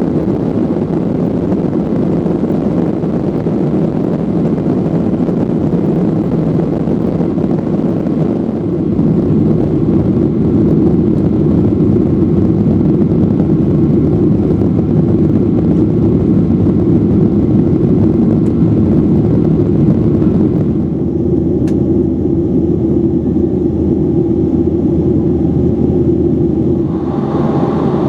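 Boeing 737-800 cabin noise: the steady rumble of the jet engines and airflow heard from a passenger seat. It grows louder about eight seconds in, and its character shifts abruptly twice near the end, the second time with a steady hum coming up.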